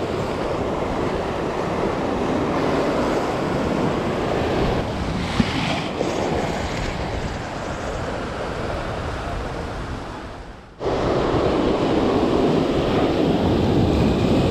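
Surf breaking and washing against rocks, with wind buffeting the microphone. The sound fades a little, then comes back suddenly louder about eleven seconds in.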